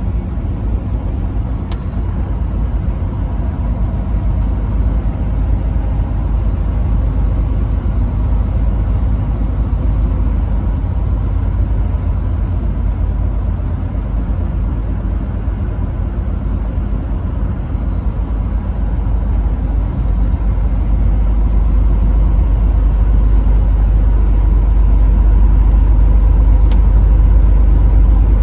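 Truck driving on the road: a steady low rumble of engine and tyre noise that grows a little louder over the last several seconds.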